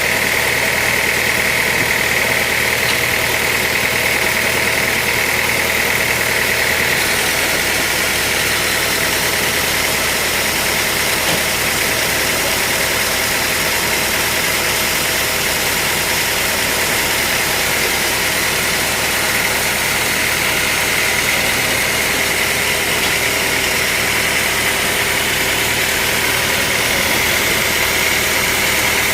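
Sawmill machinery running steadily: a continuous mechanical drone with a steady high-pitched whine, without distinct cuts or impacts.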